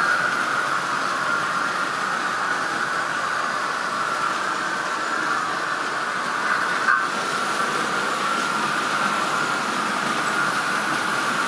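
Märklin E41 model electric locomotive's mfx sound decoder playing a steady running noise, a constant hiss-like hum, with a brief tick about seven seconds in.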